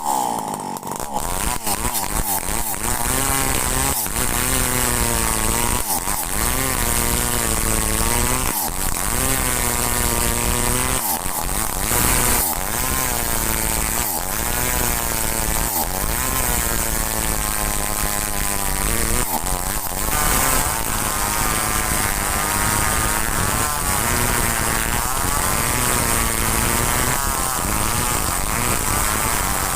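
Two-stroke chainsaw cutting kulim hardwood, running at high revs under load. Its pitch sags and recovers every couple of seconds as the chain bites, with a few brief drops.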